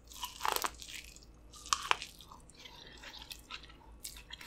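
A bite into an ear of elote (corn on the cob) coated in crushed Flamin' Hot Cheetos, with the loudest crunch in the first second, then chewing with scattered small crunches and clicks.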